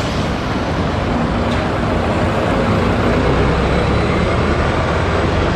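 Bus engine running, a steady rumble with a hiss over it.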